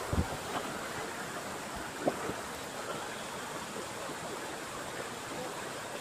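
Shallow rocky stream running steadily over stones, with two brief low thumps, one right at the start and one about two seconds in.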